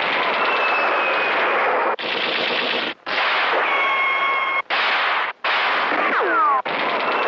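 Marx Sound of Power toy rifles playing their recorded battle sounds: rapid machine-gun-like fire in several stretches separated by brief cut-outs, with a falling whistle a little after six seconds.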